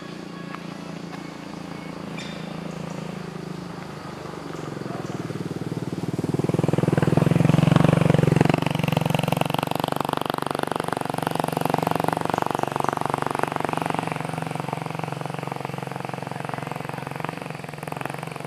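A motor vehicle engine running, louder from about five seconds in and loudest near eight seconds, then staying fairly steady.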